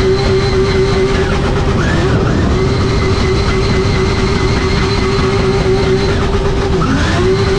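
Drift car's engine held at high, nearly steady revs through a drift, heard from inside the stripped, caged cabin. The pitch dips briefly about two seconds in and climbs back, then dips again near the end.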